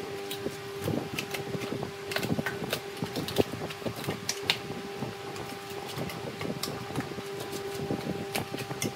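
Wood lathe running with a steady hum, with irregular ticks and scrapes as a turning tool cuts the spinning wood.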